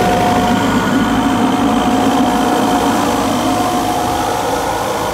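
Multihog CV compact suction sweeper running as it sweeps: a steady drone of its engine and suction fan, with a faint steady whine.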